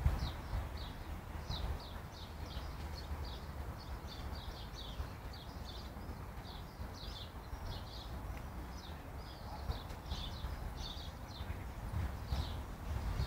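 Many small birds chirping in short, quick notes, several a second, over a steady low rumble.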